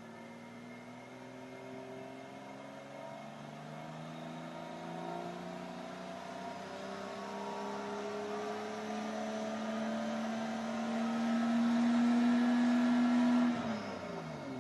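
BMW F30 335i's turbocharged 3.0-litre inline-six revving slowly upward through an iPE valved exhaust with its valves closed, getting louder as it climbs. Near the end the throttle is released and the revs fall away quickly.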